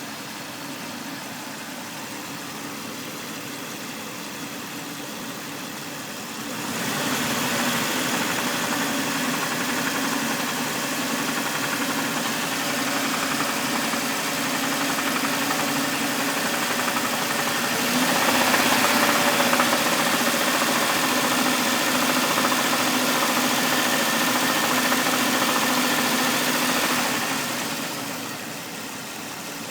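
2000 Jeep Cherokee XJ engine running with a knock from the motor. It grows louder about 7 seconds in and again around 18 seconds, then drops back near the end.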